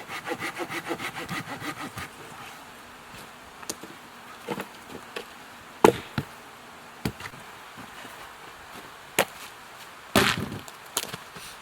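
Hand saw cutting wood in a quick run of strokes for about the first two seconds, followed by scattered sharp knocks and snaps of wood being handled.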